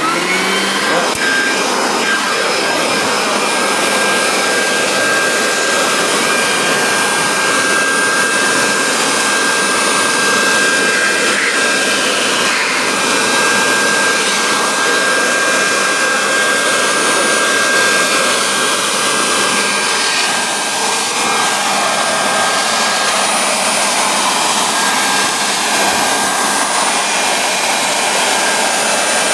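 Electric leaf blower switching on, its motor whine rising as it spins up, then running at full speed: a steady whine over loud rushing air as it blasts leaves and dirt out of a car's engine bay.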